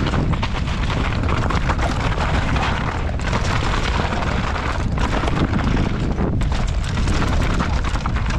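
Enduro mountain bike descending a rocky trail at speed: a steady rush of wind on the action camera's microphone, mixed with the rumble and rattle of tyres and bike over rocks.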